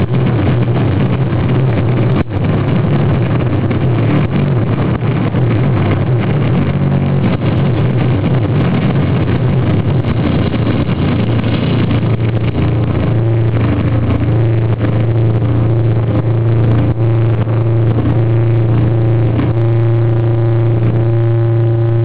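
Loud, heavily distorted electric guitar from a sludge metal band's live set, first a dense, noisy low drone, then from about halfway settling into steady held feedback tones over a deep hum.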